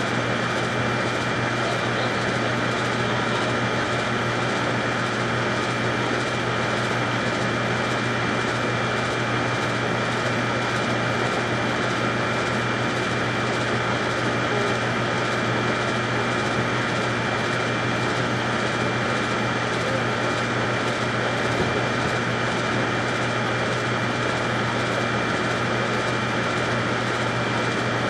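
Sewer jetter's engine and high-pressure water pump running steadily, a constant hum with a steady high whine on top.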